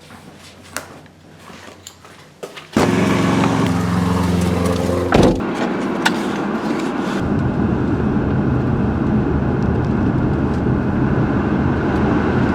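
A car engine starts up suddenly about three seconds in, then keeps running with a steady rumble heard from inside the car, with one sharp thump a couple of seconds after it starts.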